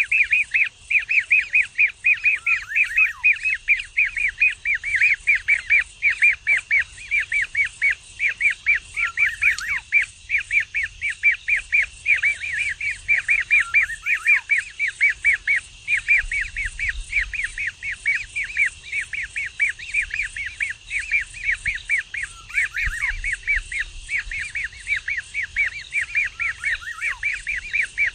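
Kingfisher chick calling: an unbroken, rapid series of short, high, downward-slurred chirps, about three or four a second.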